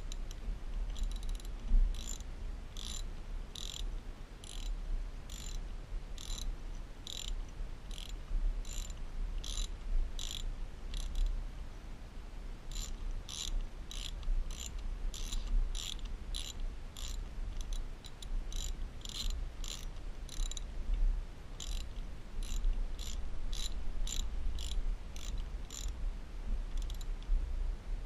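Socket ratchet wrench turning a bolt on a motorcycle's front brake caliper: repeated short ratchet clicks with each back-swing of the handle, about two a second, broken by a few brief pauses.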